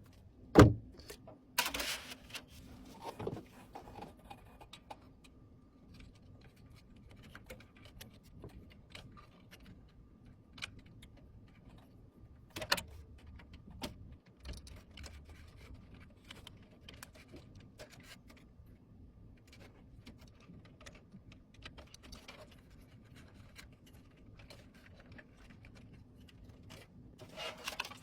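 Scattered small clicks and light knocks of computer hardware being handled and fitted during a PC build, with a sharper click about half a second in, over a faint steady hum.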